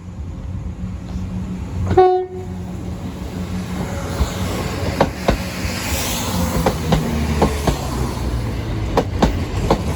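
East Midlands Railway diesel multiple unit passing over the level crossing: one short horn blast about two seconds in, then the train runs by with its wheels clacking over rail joints in pairs.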